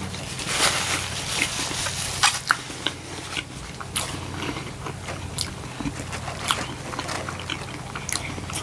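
A person biting and chewing food close to the microphone, with many short wet clicks and smacks of the mouth, over a steady low hum.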